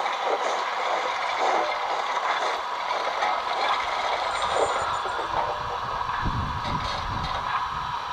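A train running, with a steady mechanical running noise. A lower rumble comes in about six seconds in.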